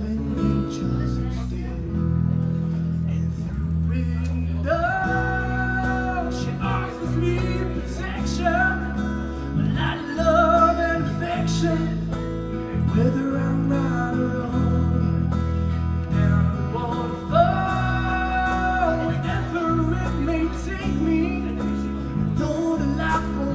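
Live acoustic band music: strummed acoustic guitars and a bass guitar playing steadily, with a woman singing in several phrases.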